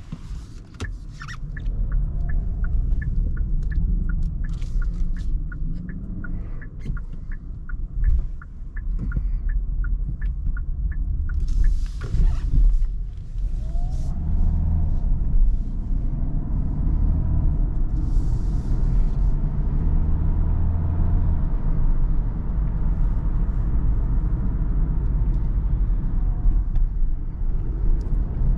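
Inside the cabin of a Kia Sorento 1.6 T-GDI hybrid, the turn-signal indicator ticks evenly for about the first ten seconds during a turn. Under it runs the low rumble of the engine and tyres, which grows as the SUV pulls away.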